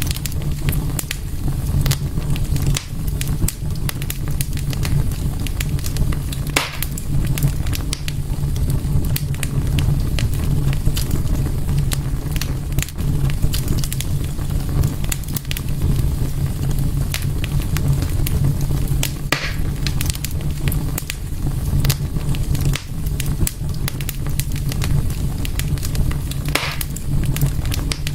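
Wood fire burning in a fireplace: a steady low rumble with constant small crackles. Three louder pops stand out, about a quarter of the way in, two thirds of the way in and near the end.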